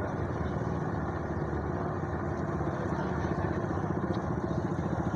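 An engine idling steadily with an even, regular throb.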